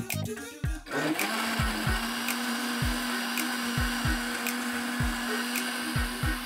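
Countertop blender starting up about a second in and running steadily at one speed, puréeing strawberries, clear soda and jelly into a frothy drink.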